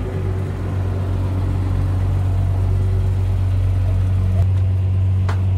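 A small ferry's engine running with a steady low drone. There is a single light click near the end.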